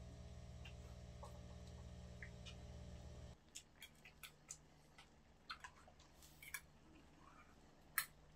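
Quiet eating at a table: spoons and chopsticks lightly clicking against bowls, with one sharper clink near the end. A steady low hum underneath cuts off suddenly about three seconds in.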